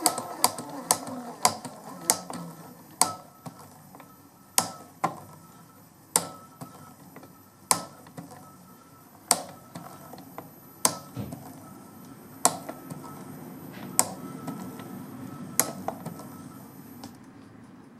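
Vida XL 120 W electric mini scooter's rear drive wheel turning with sharp clacks, close together at first and then about one every second and a half: the drive belt is not seated and jumps on its pulley. A faint steady whine under the clacks stops shortly before the end.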